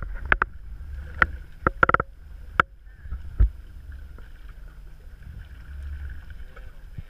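Small boat rocking on open ocean chop: water slaps and knocks against the hull several times in the first few seconds, over a low wind rumble on the microphone and a faint steady whine from the Mercury outboard at idle.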